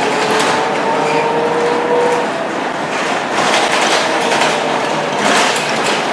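Scania K230UB city bus driving under way, heard from inside the cabin. Drivetrain noise carries a whine that rises slowly in pitch and stops about two seconds in. After that come louder surges of rattling from the bodywork, around three to four seconds and again near five seconds.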